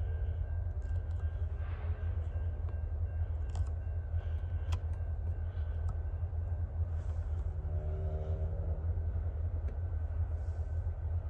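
Diesel freight locomotive running in the distance, a steady low rumble as the train approaches slowly.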